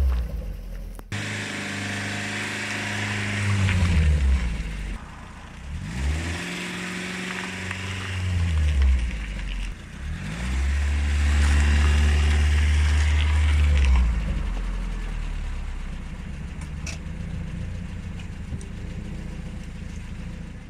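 Car engine running at low speed, its pitch rising and falling several times as it is revved lightly to creep the car over the objects, with an abrupt cut about a second in.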